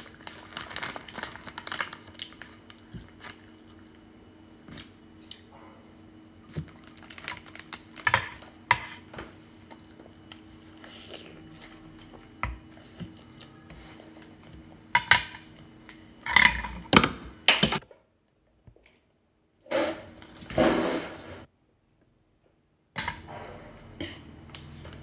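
Eating sounds: a plastic noodle packet crinkling at first, then scattered clicks of chopsticks against a plate and a few louder mouth sounds of eating noodles, over a low steady hum. The sound cuts to silence twice in the second half.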